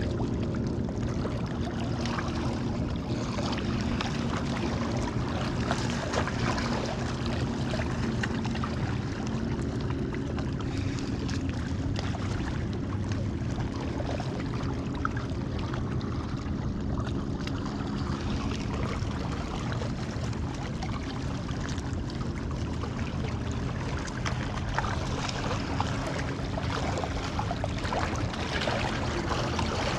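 Small lake waves lapping against shoreline rocks, a steady water wash with a low, even hum underneath.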